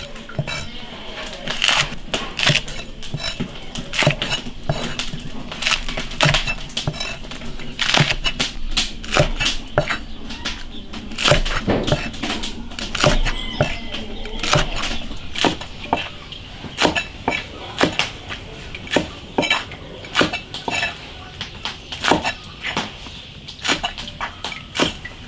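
Cleaver chopping green chili peppers on a thick wooden chopping block: a string of irregular knocks of the blade on the wood, a few a second.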